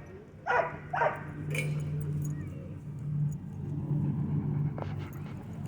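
A dog barks twice in quick succession, about half a second and a second in, then a steady low hum carries on.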